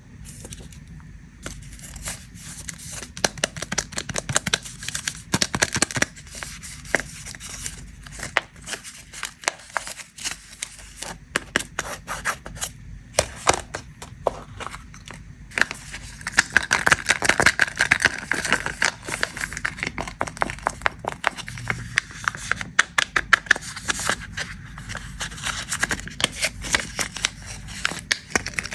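Plastic snack wrappers being crinkled and torn open: a dense, continuous crackle of sharp clicks and rustles, busiest in the second half.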